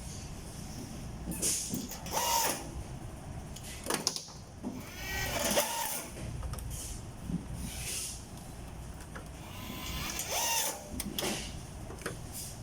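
Factory machinery noise: a steady low hum with several short hissing bursts and squeaks, the loudest about five to six seconds in.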